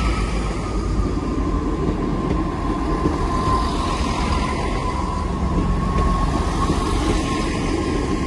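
Class 158 diesel multiple unit departing and running past close by: a steady rumble of diesel engines and wheels on the rails, with a faint high whine that falls slightly in pitch.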